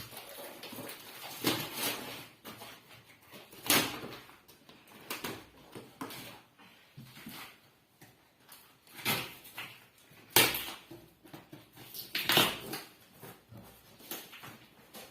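Cardboard carton and its plastic packing being pulled open and handled, with irregular rustling and scraping and a few louder crackles and scrapes.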